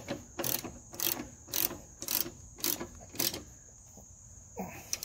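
Ratcheting wrench being worked on a grille guard bracket bolt: about seven short clicking strokes, roughly two a second, stopping a little past three seconds in. A steady high insect chirring runs behind.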